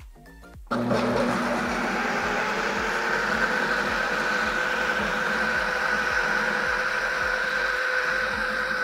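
Food processor motor switched on about a second in, then running steadily as its blade chops soaked lentils with parsley and onion for falafel.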